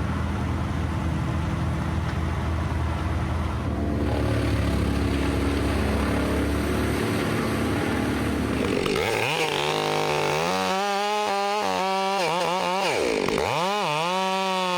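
An engine runs steadily at a low pitch. About nine seconds in, a chainsaw takes over, revving up and down repeatedly as it cuts.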